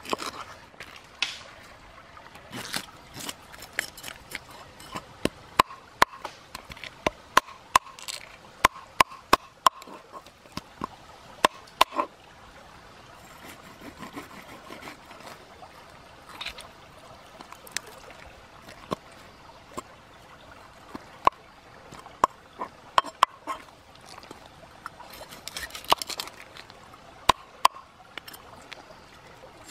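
Knife scraping the scales off a whole fish on a wooden cutting board: irregular sharp clicks and short scrapes as the blade rasps the scales and taps the board.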